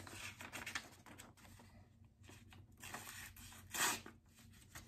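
A sheet of paper being sliced with a freshly sharpened axe edge to test its sharpness: faint papery cutting and rustling, with one louder, brief slicing swish near the end.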